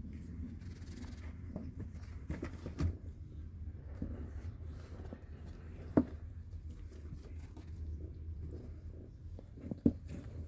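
Kittens moving about, making soft scratching and rustling over a low steady rumble, with two sharper knocks, one about six seconds in and one near the end.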